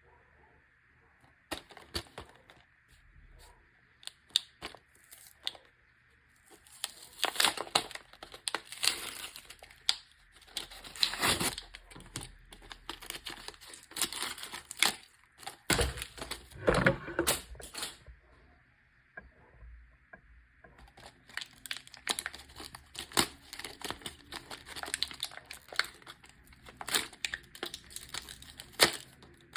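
Packaging being handled and opened by hand: crinkling, tearing rustles and sharp clicks in two long busy stretches, with a short lull about two-thirds of the way through.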